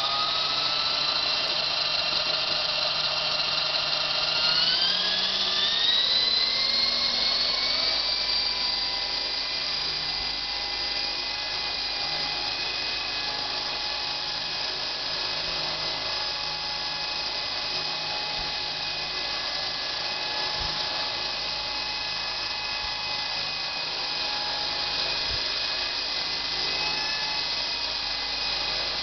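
Eco Piccolo V2 micro RC helicopter's small electric motors and rotor spinning with a high-pitched whine. The pitch rises in two steps over the first several seconds as the rotor spools up for lift-off, then holds fairly steady while it hovers low in ground effect.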